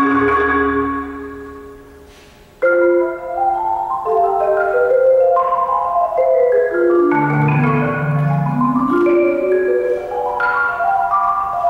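Solo concert marimba played with mallets. A held chord dies away over about two and a half seconds, then a sudden loud attack starts fast runs of notes that sweep down to the low bars and back up, with another accented entry near the end.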